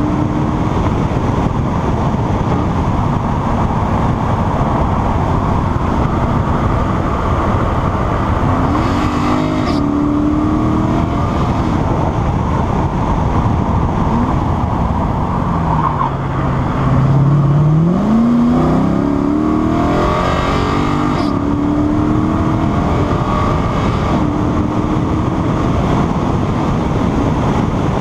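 Lexus IS-F's V8 running at track speed under heavy wind and road noise. About halfway through, the engine note falls as the car slows for a corner, then climbs steadily as it accelerates out.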